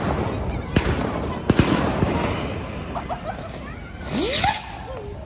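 Firecrackers going off: a few sharp bangs in the first second and a half over steady crackling and popping, then a lit ground firecracker sputtering with a loud hiss about four seconds in.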